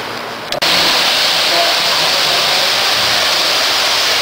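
O-gauge model train cars rolling along the track over a trestle close by, a steady loud rushing rumble that cuts in abruptly with a click just over half a second in.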